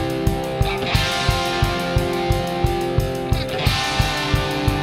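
Background music with a steady beat of about three a second under sustained chords.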